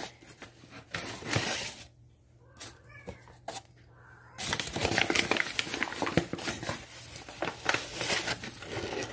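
Flour being measured out for cookie dough: scooping, rustling and scraping of a measuring cup in flour, with light knocks, dense and loudest in the second half. A short high rising call sounds about three seconds in.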